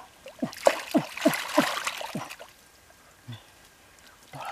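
Hands splashing and sloshing in a shallow muddy puddle while groping for fish: a quick run of six or seven wet splashes in the first two seconds, then quieter, with a single small splash about three seconds in.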